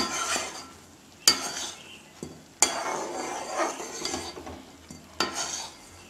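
A metal spoon stirring and scraping bubbling jaggery syrup in a steel kadai, knocking sharply against the pan four times. The jaggery is being boiled down toward a sticky syrup.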